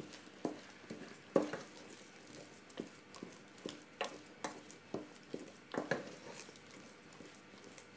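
A wooden spoon stirring and beating thick pounded yam in a stainless steel pot, with irregular knocks of the spoon against the pot about twice a second.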